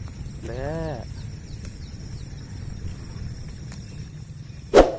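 One short drawn call about half a second in, over a low steady rumble. Near the end comes a single sharp metallic clank that rings briefly, the loudest sound here.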